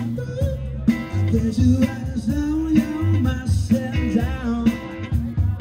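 Live rock band playing: electric guitar, bass and drum kit keep a steady beat under a gliding melody line.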